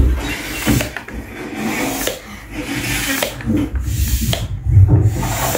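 Hand air pump being worked in repeated strokes, air hissing through it with plastic rubbing and knocking, as it inflates a pool float.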